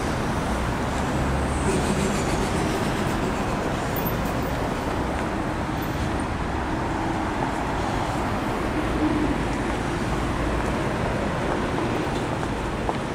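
Busy city road traffic: cars, taxis and buses passing on a multi-lane road, heard as a steady mix of engine and tyre noise.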